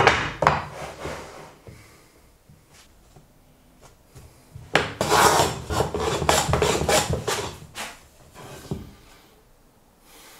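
Clifton bench plane cutting shavings off an oak board: a sharp stroke at the start that trails off, then one long stroke of about three seconds around the middle, and a short one a little later.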